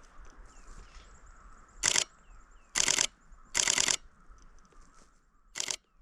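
Camera shutter firing in four short bursts of continuous shooting, each a quick run of clicks, the longest about half a second.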